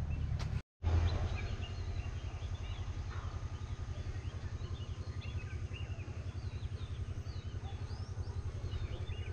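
An engine idling with a steady, even low beat, while birds chirp over it. The sound cuts out for a moment just under a second in.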